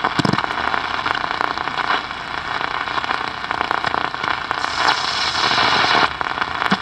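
Hiss and crackle of static from a 1960s General Electric World Monitor transistor radio on its shortwave band as the dial is tuned. There is a steady hiss with scattered crackles, and a louder stretch of hiss between about four and a half and six seconds in.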